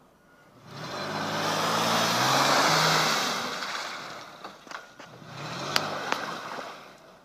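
A first-generation Mercedes-Benz M-Class SUV's engine revving as it tries to drive out of deep mud, with a loud rush of wheels spinning in the mud that peaks about two to three seconds in. A second, shorter rev follows near the end, with a few sharp clicks in between.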